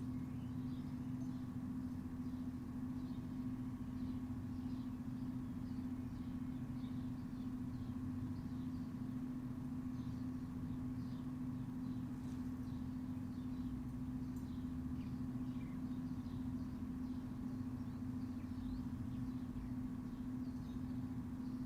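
Backyard ambience: a steady, unchanging low hum with a fainter tone above it, under many short, faint bird chirps scattered throughout.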